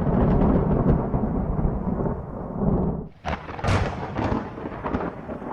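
Thunder rumbling, then a sharp crack of close thunder about three seconds in, after a brief lull, that rolls away.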